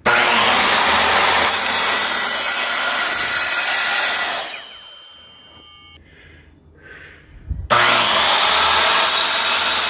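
Electric miter saw starting up and crosscutting an oak pallet board, its motor winding down with a falling pitch about four seconds in. About 7.7 seconds in the saw starts again abruptly for a second cut.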